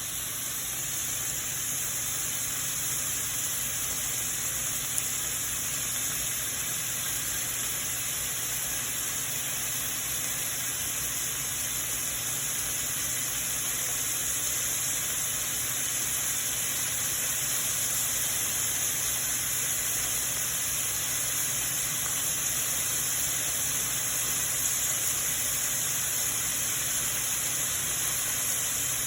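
Broccoli florets sautéing in olive oil in a pan, giving a steady sizzling hiss as they steam.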